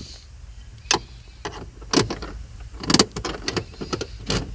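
Irregular sharp clicks and light knocks of a gear-shifter cable and its plastic and metal fittings being handled and worked loose by hand, with a quick cluster of clicks about three seconds in.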